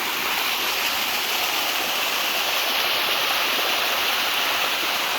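Water of the Sticky Waterfall (Bua Tong) rushing steadily over its limestone steps, heard up close as an even, unbroken hiss.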